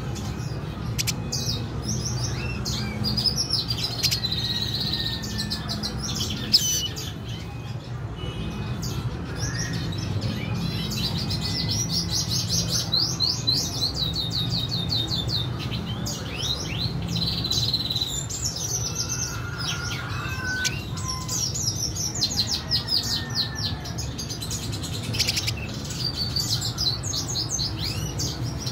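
Red siskins chirping and twittering in quick repeated series of short high notes, with some longer trills, over a steady low hum.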